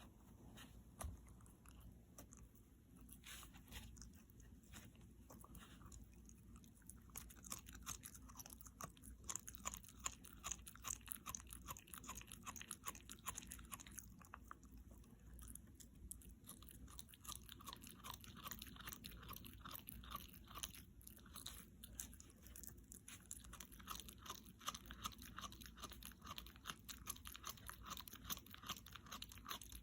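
A Shiba Inu chewing something crunchy: a steady run of quick, crisp crunches and bites.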